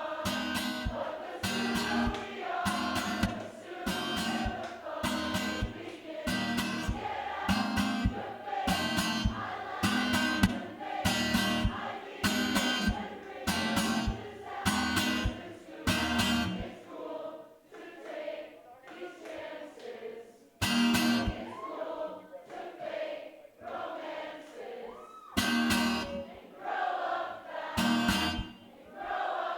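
Acoustic guitar strummed hard in regular chord strokes, with voices singing over it. About 17 seconds in the strumming drops away to a quieter passage of held, wavering notes, and heavy strums return near the end.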